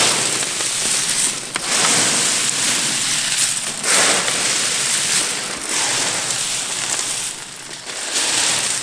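Crisp fried jackfruit chips rustling and crackling as they are tossed and turned by hand on a large metal tray, mixing in the salt. The rustle swells with each handful, several times over.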